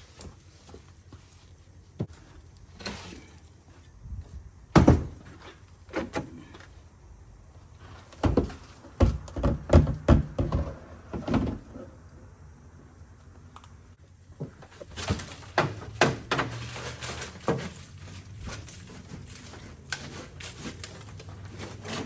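Scattered knocks and clunks of metal parts and junk being handled and moved around inside an old car, with one loud knock about five seconds in and clusters of clunks in the middle and later on.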